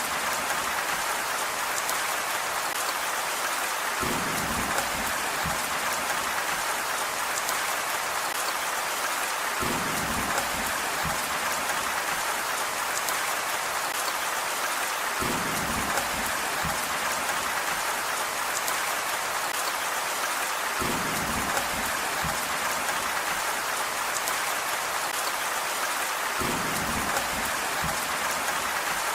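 Steady rain hiss, with a low rumble lasting a second or two that comes back at even intervals, about every five and a half seconds.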